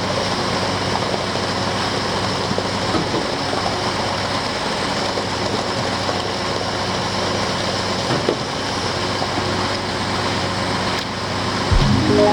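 Concrete pumper truck running steadily under load with a continuous heavy engine-and-pump drone. A louder, deeper sound comes in near the end.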